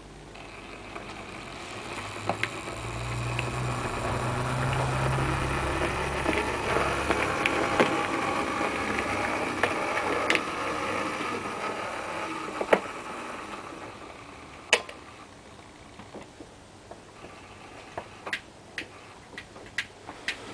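Model diesel shunting locomotive running past on model railway track: its small electric motor hums and its wheels rattle on the rails. The sound swells over a couple of seconds, stays loud for about eight seconds, then fades away, with scattered sharp clicks throughout.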